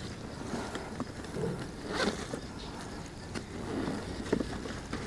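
Hands rummaging in a hard plastic motorcycle top case, shifting gear and bubble wrap, with a few light knocks and clicks about two, three and a half, and four and a half seconds in.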